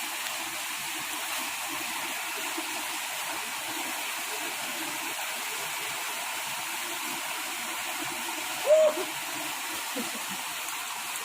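Steady rushing of flowing river water, with one brief, loud hoot-like call about nine seconds in.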